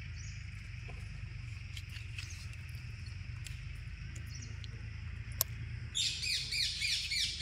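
A rapid series of shrill animal squawks begins about six seconds in, repeating about four or five times a second, each call dropping in pitch. Before that there is only a steady low hum with a few faint chirps.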